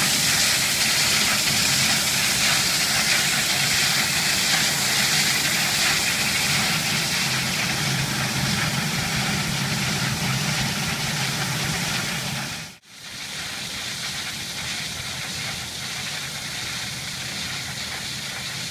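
Diamond wire stone saw running steadily through granite: a continuous hiss over a low hum. It cuts out for an instant about 13 seconds in, then carries on somewhat quieter.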